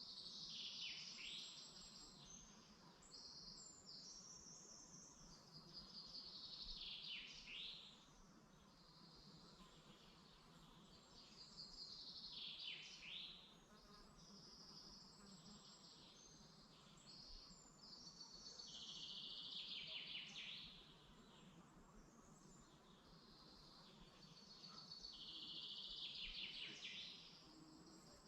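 A songbird singing the same short phrase about every six seconds, five times, each phrase high-pitched and ending in quick downward-sweeping notes, with fainter chirps in between.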